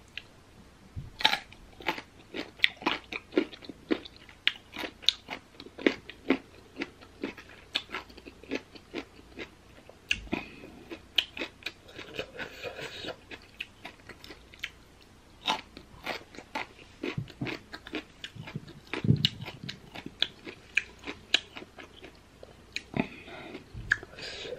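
Crisp crunching as firm, unripe baby mango slices are bitten and chewed close up: many sharp crunches a few per second, with a couple of short pauses.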